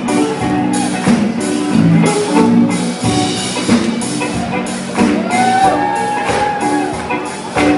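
Live blues band playing a slow number: steady drum-kit beats under held chords, with lead notes that bend up and down in pitch.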